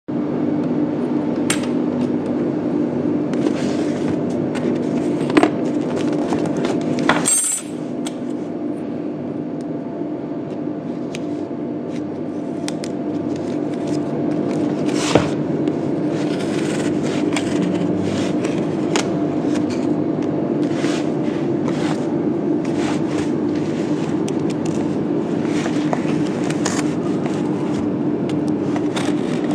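A cardboard parcel being handled and cut open: scattered scrapes, rustles and clicks over a steady hum. Near the end a bare utility knife blade scrapes along the packing.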